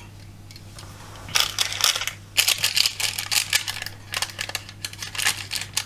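Pizza cutter wheel rolling through a crisp, baked cheese-and-egg crust on parchment paper. It gives irregular crunching and scraping from about a second and a half in. A steady low hum runs underneath.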